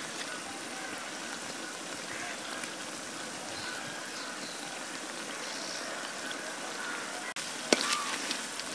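Onions, green chillies, mint and coriander sizzling and bubbling steadily in oil in a cooking pot. Near the end a spoon knocks a few times against the pot as stirring begins.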